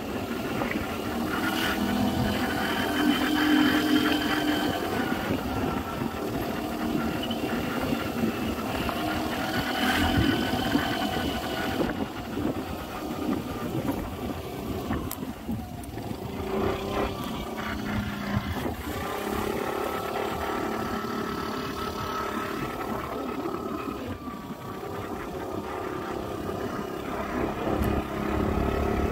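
Aprilia SR GT scooter's engine running while riding slowly, its note rising and falling with the throttle.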